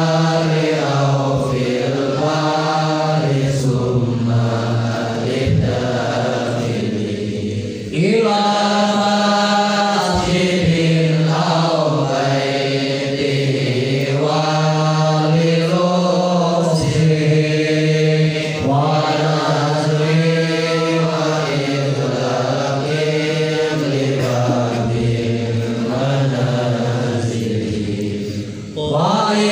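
Melodic chanting of an Arabic devotional poem (syair) set to the tawil metre, sung in long sustained lines. There is a brief break about eight seconds in and another near the end.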